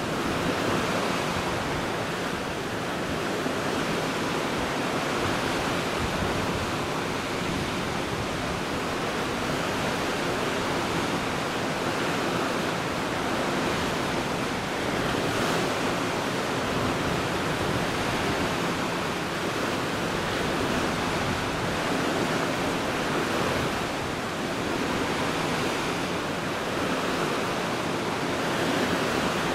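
Steady rushing noise of sea water, even and unbroken.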